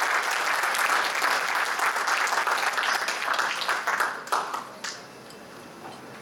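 Audience applauding, thinning out to a few last claps about four to five seconds in.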